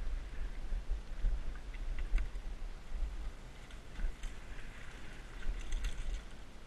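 Mountain bike riding fast down a dirt trail, heard from a helmet camera: wind rumble on the microphone, which swells and falls, with scattered clicks and rattles from the tyres and bike over the ground.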